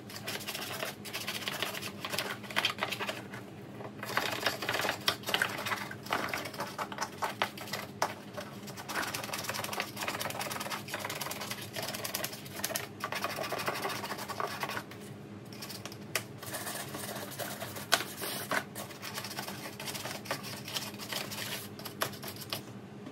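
Toothbrush scrubbing a plastic tackle-box tray: rapid scratchy brushing strokes, pausing briefly about 4 seconds in and again around 15 seconds in.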